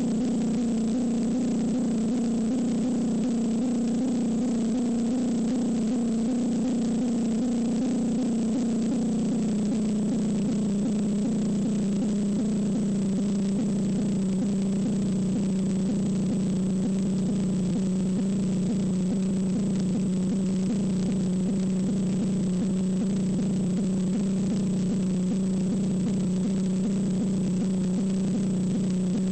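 A steady low hum made of several stacked tones at an even level, its pitch sagging slightly about a third of the way in and then holding.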